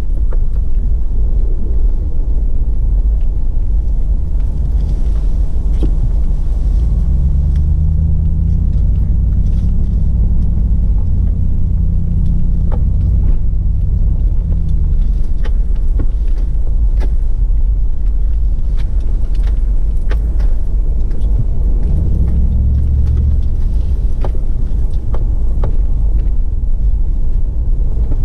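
Toyota 4Runner's 4.7-litre V8 pulling the truck over a trail, over a constant low rumble. The engine note rises and falls as it is revved, once through the middle and again near the end. Scattered clicks and knocks come through throughout.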